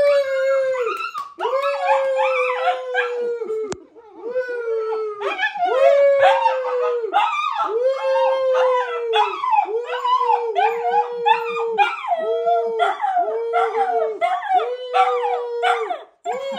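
Siberian husky puppy howling, a run of about a dozen drawn-out howls, each about a second long, with yips between them.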